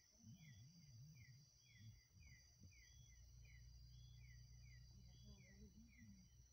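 Faint night chorus of insects: a steady high trill with short falling chirps repeating about twice a second.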